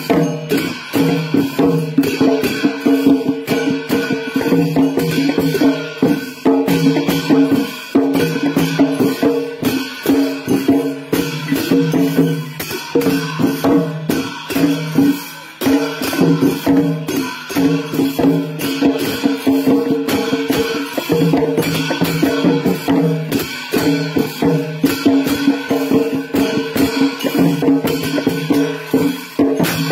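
Live traditional Nepali drum-and-cymbal music for a Lakhe dance: fast, dense drum strokes with clashing cymbals over held pitched notes that break off and return every few seconds.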